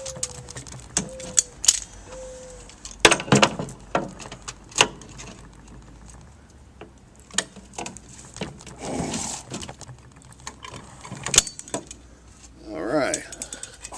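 Thin galvanized sheet metal being crimped and bent by hand with a small tool: a run of sharp, irregular metallic clicks and clanks.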